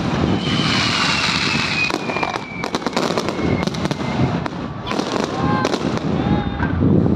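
Fireworks going off: repeated bangs and crackles, with a long whistle falling in pitch over the first few seconds, over a background of crowd voices.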